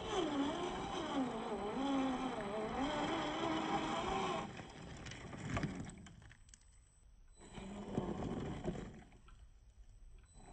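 Brushed 550 motor and drivetrain of a 1/10 scale RC crawler whining, the pitch rising and falling with the throttle. After about four and a half seconds it drops to a quieter sound with a couple of short louder spurts.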